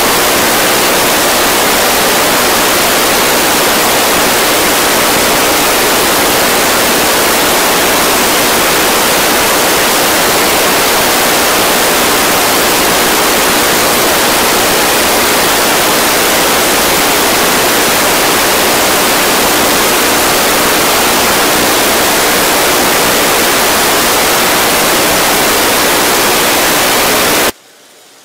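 Loud, steady rushing hiss, even across all pitches, that cuts off suddenly near the end.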